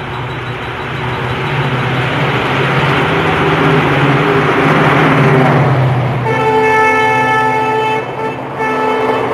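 An express train hauled by an electric locomotive runs through the station. Its rumble and low hum grow louder as it approaches. About six seconds in, the locomotive's horn sounds a long blast, breaks off briefly, and sounds again as the coaches pass.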